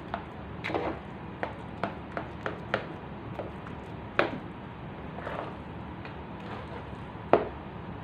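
A spatula knocking and scraping against the sides of a large aluminium pot while stirring a thick glutinous rice mixture. Irregular knocks, the loudest about four seconds in and just before the end.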